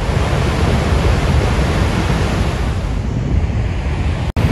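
Steady rushing of the Niagara River's water, with wind on the microphone. The sound drops out for an instant near the end.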